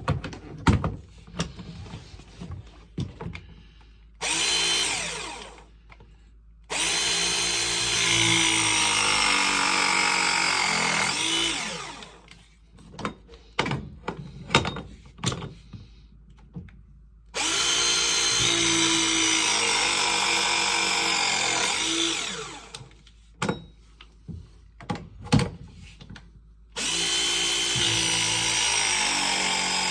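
Power drill running in four bursts of a few seconds each, its pitch sagging and recovering as it works, with knocks and clatter of handling between the bursts.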